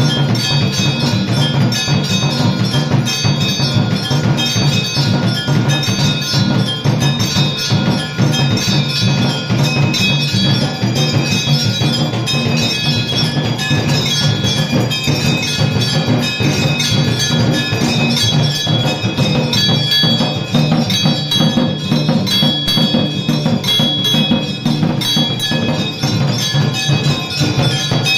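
Temple bells clanging rapidly and continuously with beaten percussion underneath, the accompaniment to a Hindu aarti.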